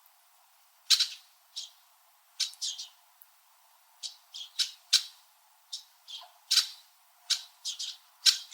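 Several red-winged blackbirds giving short, sharp chirp calls back and forth, some fifteen calls in an irregular series, some in quick clusters of two or three.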